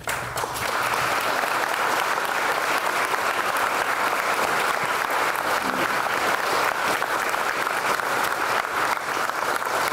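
A round of applause from a crowd of people, steady dense clapping that starts abruptly.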